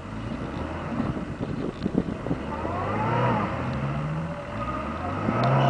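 Jeep Cherokee engine revving under load off-road, its pitch rising and falling a few times and loudest near the end, with a quick run of knocks and clunks about one to two seconds in.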